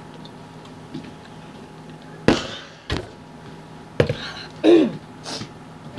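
Two sharp coughs or forced breaths out, a click between them, then a short groan falling in pitch, from a boy whose mouth is burning from habanero pepper.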